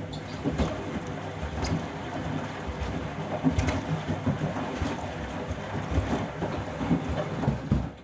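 Candy front-loading washing machine on its last rinse: the drum tumbling a load of shoes through the rinse water, with water sloshing and irregular dull thuds as the shoes drop against the drum. The sound cuts off suddenly just after the end.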